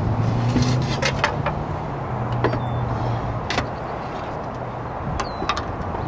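Clay roof tiles clinking and knocking, several sharp clinks as they are handled and set on the roof, over a steady low hum.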